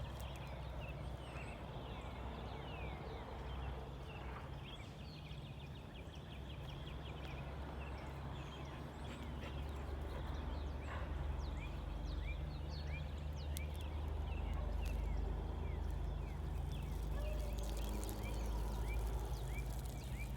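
Morning bird chorus of many short chirps over a steady low hum. Near the end come two brief, lower pitched calls.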